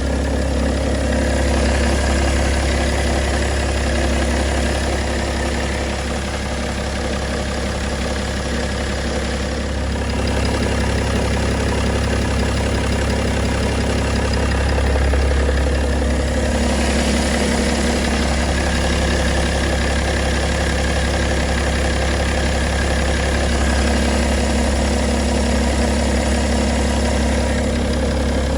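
BMW M57 straight-six diesel engine of an E92 325d idling steadily, with a noise that the owner wonders may be the timing chain.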